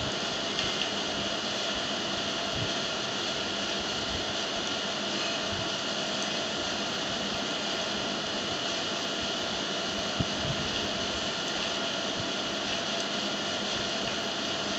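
Steady droning background noise from a motor-driven machine, an even whir with several fixed humming tones and no change in level, with one short click about ten seconds in.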